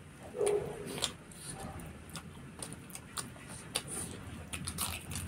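Close-up eating sounds: chewing and lip smacks, with scattered small clicks as fingers work rice and curry on steel plates, and a brief murmur about half a second in.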